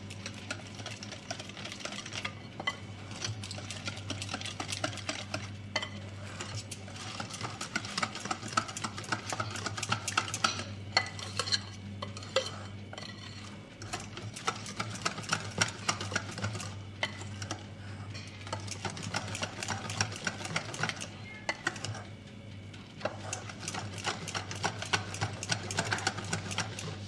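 Wire balloon whisk beating thick cake batter in a glass bowl by hand, the wires clicking and scraping rapidly against the glass as the flour is worked into the wet mix. The whisking runs on steadily, with a short break about three quarters of the way through.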